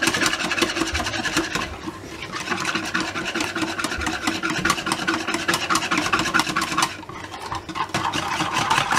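Wire whisk beating an egg and milk mixture in a bowl: rapid, steady strokes with the wires scraping the bowl and the liquid sloshing. It eases off briefly about two seconds in and again around seven seconds in.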